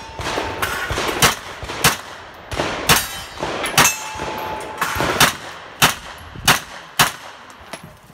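Pistol-caliber carbine firing a string of single shots, each a sharp crack, spaced roughly half a second to a second apart. Some shots are followed by a short metallic ring as steel targets are hit.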